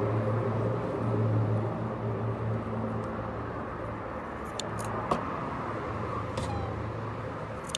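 Steady low drone of an idling engine. Several short, sharp snips of scissors cutting netting come from about halfway through to the end.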